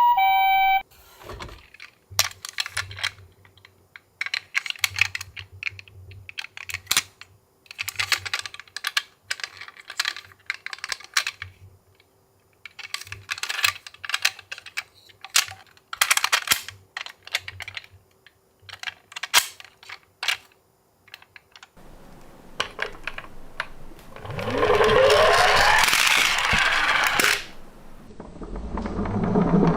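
Die-cast miniature toy cars clinking and clattering in irregular bursts as they are handled in a box. Near the end a louder rushing noise with gliding tones takes over.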